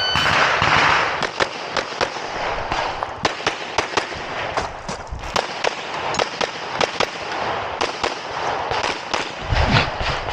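A shot timer's start beep, then a long run of rapid 9mm pistol shots from a Canik METE SFT Pro, many fired as quick pairs, for about eight seconds during a USPSA stage run.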